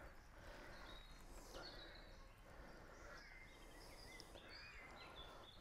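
Near silence: faint outdoor background with a few faint bird chirps.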